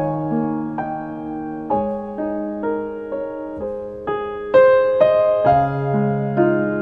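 Background music: a gentle piano melody, notes struck one after another with chords held under them.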